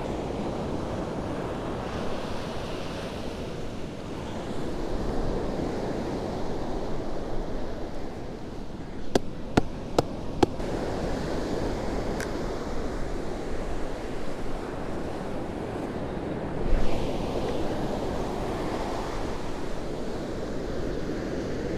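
Ocean surf washing on a sandy beach, with wind noise. About nine seconds in come four quick sharp knocks a few tenths of a second apart, and another a couple of seconds later.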